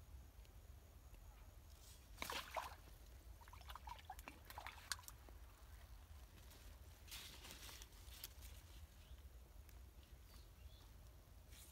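Faint water splashing and sloshing as a hooked fish is pulled through the shallow water and out of a canal. It comes in a few short bouts, about two seconds in, again around four to five seconds, and around seven to eight seconds.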